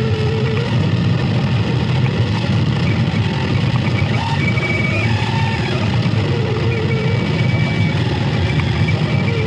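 Harsh noise music from a record: a dense, steady rumbling wall of distorted sound, heaviest in the low end, with faint wavering tones drifting above it.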